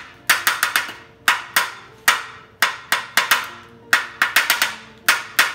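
A spoon tapping and knocking against a parchment-lined baking pan while spreading pumpkin seeds. The sharp clicks come in quick clusters of several strikes, about one cluster a second.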